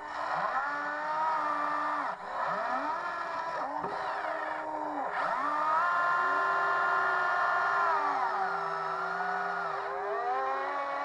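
Electric drive motors and gearboxes of a Huina 580 radio-controlled excavator whining as the boom, arm and bucket work. Several whines overlap, each rising and falling in pitch as the motors start, stop and change speed, with one longer steady stretch in the middle.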